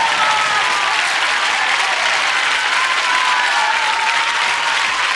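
Live studio audience applauding steadily, with high voices calling out over the clapping, just as the song's music stops.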